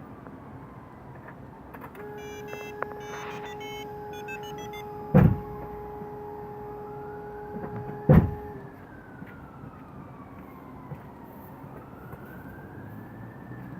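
A siren wails faintly in the background, slowly rising and falling in pitch. A steady electronic tone sounds from about two seconds in until past the middle. Two loud thumps about three seconds apart are the loudest sounds.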